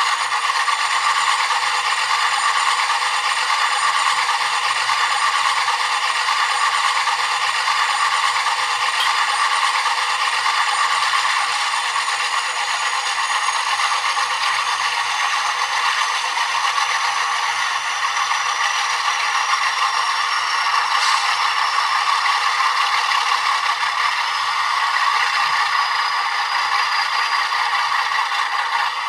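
Model locomotive sound decoder playing an Alco diesel engine running at a steady, rattling idle through a small sugar-cube speaker, with a faint high whine that slowly falls in pitch.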